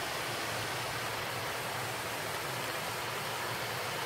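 Steady rushing of a waterfall: an even, unbroken hiss.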